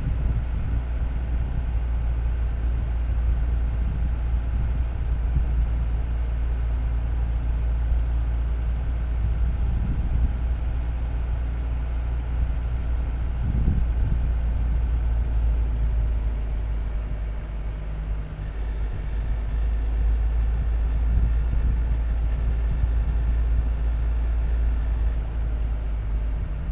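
Steady low rumble of a vehicle driving along an asphalt road: engine running at a steady cruise, with tyre and wind noise on the microphone.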